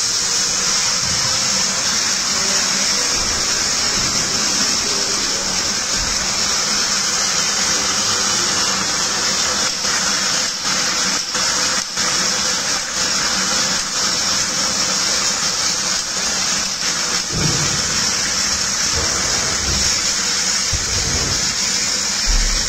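Red wine poured into a hot stainless stockpot on a commercial gas range, sizzling and bubbling as it reduces, over a steady roar and hiss from the burner.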